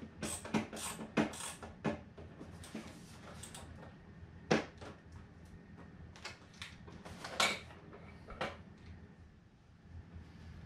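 Scattered sharp clicks and knocks of a screwdriver and hard plastic parts being handled while screws are driven into a foam RC plane fuselage, the loudest about four and a half and seven and a half seconds in, fewer toward the end.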